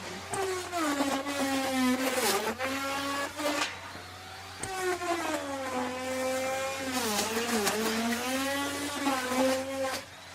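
Electric wood router running with a high whine whose pitch sags and recovers as the bit is loaded in the cut. There are two cutting stretches with a brief break about four seconds in, and the sound falls away near the end.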